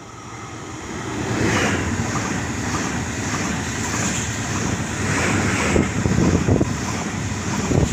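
Stadler FLIRT electric multiple unit (SBB RABe 524) passing close by, a rush of wheels and air that swells loud about a second in and holds as the cars go past, with a heavy rumble of wheels on rail.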